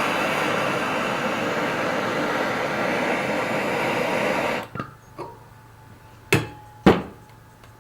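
A steady, loud rushing noise from the heating equipment used to heat the railroad spike cuts off abruptly about four and a half seconds in, followed by two sharp knocks about half a second apart.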